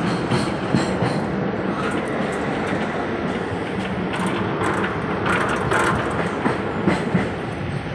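Train running, heard from inside a carriage: a steady rumble of wheels on rail with scattered clicks and rattles.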